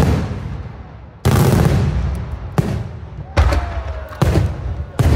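Daylight aerial fireworks shells bursting overhead: a run of about five loud booms roughly a second apart, each trailing off in a low rolling rumble.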